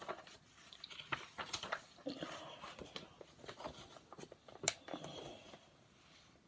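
A picture book being opened and handled: faint paper rustling and small clicks and taps of fingers on the pages and cover, with one sharper click a little before the end.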